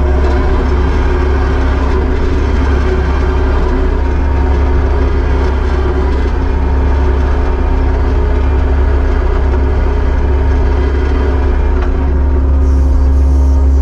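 Kubota SVL75-2 skid steer's diesel engine running steadily with a deep, even drone.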